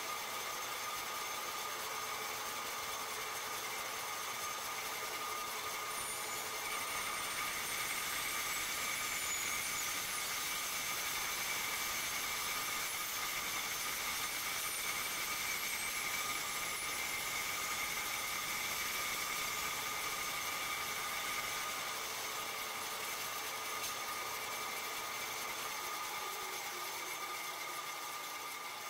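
Vertical bandsaw running with a steady whine while its blade cuts through a brass block to part off a machined piece. The saw winds down near the end.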